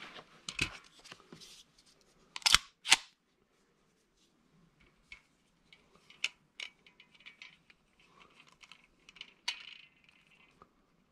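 Metal clicks and clacks from handling a CZ 97B pistol during a trigger pull test. Two sharp clacks about half a second apart come between two and three seconds in, as the action is worked. Lighter clicks and small rattles follow as a trigger pull gauge is hooked on the trigger and drawn, with a sharper click near the end.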